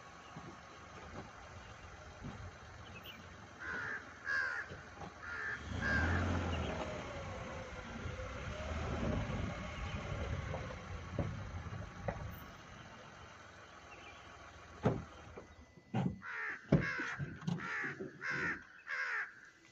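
Renault Triber creeping over a rocky dirt track, heard from inside the cabin: a low rumble with knocks and thuds as the tyres and suspension take the stones. A cluster of short, harsh squawks comes about four seconds in, and a faster run of them near the end, where the knocks are heaviest.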